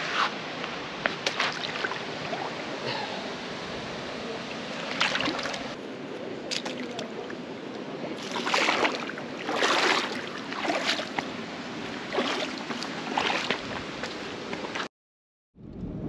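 Water splashing and sloshing in a gorge rock pool: about six separate splashes, each about half a second long, over a steady rush of flowing water. The sound cuts off abruptly near the end.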